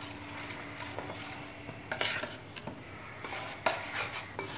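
Metal spoon stirring thick gram-flour batter in a stainless steel bowl, with a soft wet churning and a few sharp clinks as the spoon knocks the bowl's side.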